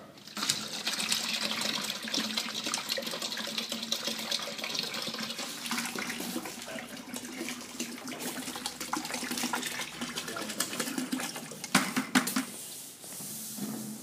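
Water poured from a plastic jug into a plastic bucket, splashing steadily, while concrete densifier is being diluted with water. Two sharp knocks near the end.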